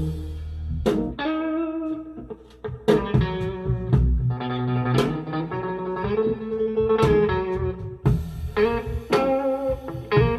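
Guitar music with plucked notes over a bass line, played back through folded horn speakers fitted with Lii Song PT-10 full-range drivers.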